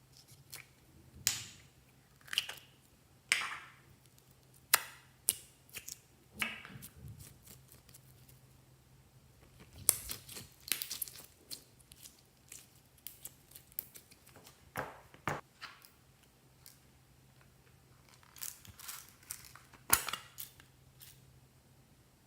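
Slime being handled, making irregular pops and crackles with short quiet gaps between them.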